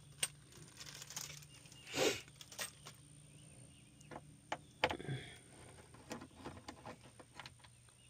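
Scattered small metallic clicks and clinks of loose bolts being handled, with a short rustle about two seconds in, as of bolts going into a plastic zip-top bag.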